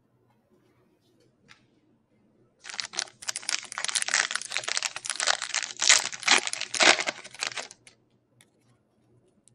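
Foil trading-card pack wrapper being torn open and crinkled by hand. A dense crackling rustle starts about two and a half seconds in and stops near the end.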